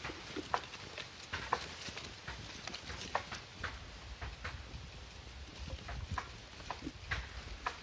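Small open wood fire crackling, with short sharp pops at irregular intervals, a few a second.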